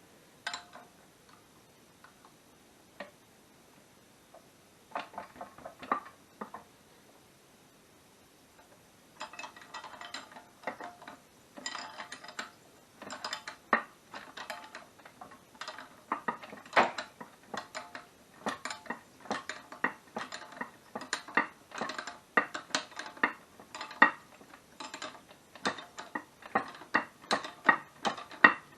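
Irregular metallic clinks and knocks of tools and suspension strut parts being handled. The knocks are sparse at first and come almost continuously from about nine seconds in.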